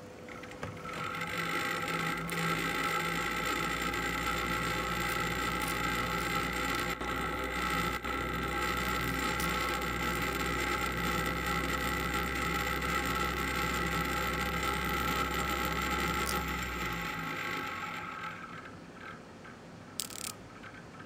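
Homopolar motor running: a stack of disc magnets on a screw hanging from a magnet spins fast while a wire rubs against its side, making a steady rattling whir. It builds up over the first second or two, holds even, then dies away about three seconds before the end, followed by a single click.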